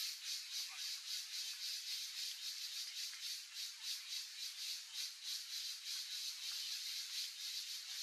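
Insects calling in chorus: a high-pitched hiss pulsing about four times a second.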